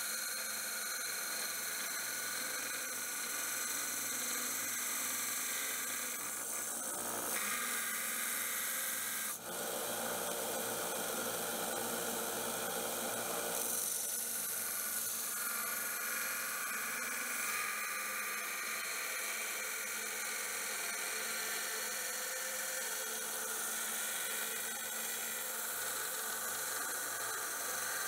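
Small bench belt sander grinding a high-carbon steel knife blade held against the running belt, a steady grinding hiss. Its tone changes a few times, with a brief dip about nine seconds in.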